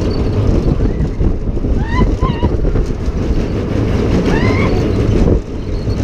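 Heavy wind rushing over the microphone of a rider on a moving amusement ride, a dense low rumble throughout. Short yells from riders break through about two seconds in and again a little after four seconds.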